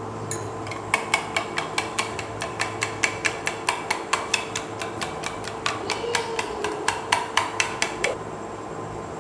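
A spoon clinking against a bowl in quick, even strokes, about five a second, while mixing the dry breadcrumb, ground oats and salt coating. The clinking starts about a second in and stops about eight seconds in.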